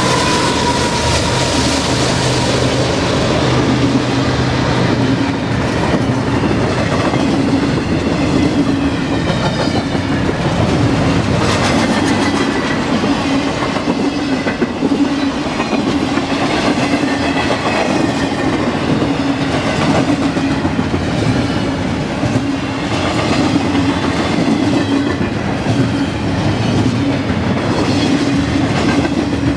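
CSX diesel freight train passing close by. The locomotives' engines drone for the first few seconds, then the long string of double-stack container cars goes by with a steady rumble and clatter of wheels on the rails.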